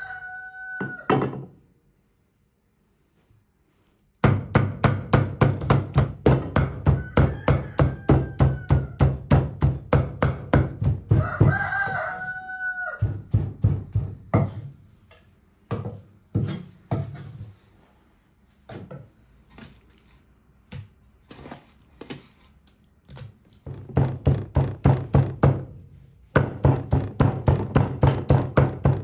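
Two cleavers mincing raw beef on a thick wooden chopping board, in quick, steady strokes of about four or five a second. The chopping stops briefly a couple of seconds in, thins to scattered strokes in the middle, and speeds up again near the end. A rooster crows a few times in the background.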